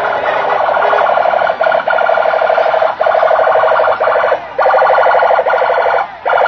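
Electronic siren of a police escort vehicle sounding in a rapid, steady pulsing pattern, loud and unbroken apart from a few brief gaps.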